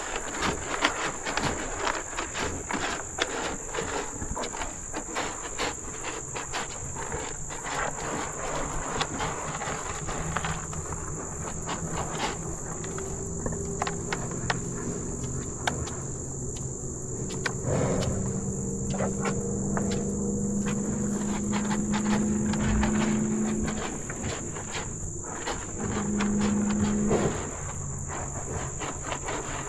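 Insects, crickets or similar, chirring in one steady high-pitched drone, over many small clicks and rustles. From about ten seconds in, low drawn-out pitched tones come in and run for over ten seconds, with a shorter, louder one near the end.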